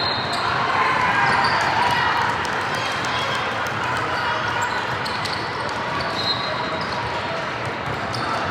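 Youth basketball game in a gym: a basketball bouncing on the court amid a steady hubbub of indistinct voices from players and spectators.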